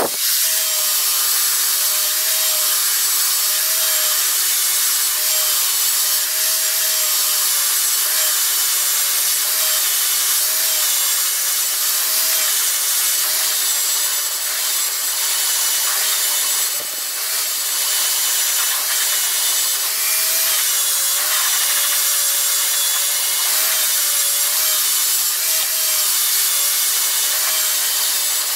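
Angle grinder running with an abrasive disc pressed against the steel of an old axe head, sanding and polishing its surface: a steady motor whine under a loud hissing rasp of abrasive on metal. The motor's pitch wavers slightly.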